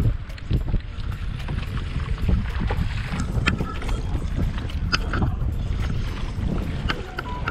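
Wind buffeting the microphone over water slapping against a kayak's hull, with scattered sharp clicks and knocks.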